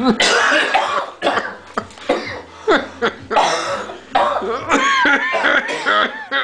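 A person coughing hard and repeatedly in a rapid string of harsh coughs, with short, squeaky pitched sounds between coughs about five seconds in.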